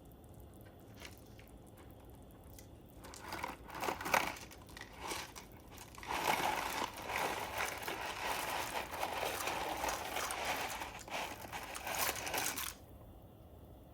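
Packaging crinkled and handled: a few short crinkles, then about six seconds of continuous crinkling that stops abruptly.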